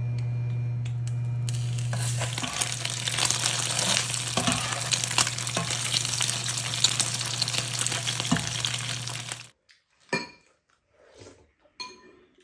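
Egg-coated tofu slices frying in oil in a nonstick pan: a steady sizzle that builds up about two seconds in, with a metal spatula scraping and tapping the pan, over a steady low hum. It cuts off abruptly near the end, leaving a few faint clinks of spoons on bowls.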